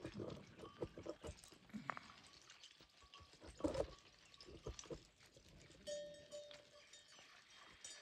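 A flock of sheep and goats moving over stony ground: scattered knocks and clicks of hooves on rock, with water dripping and splashing at a trough.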